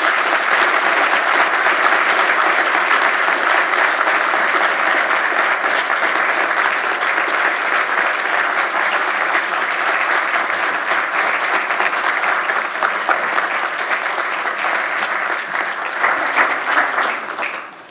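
Audience applauding, a steady clapping that thins out and dies away near the end.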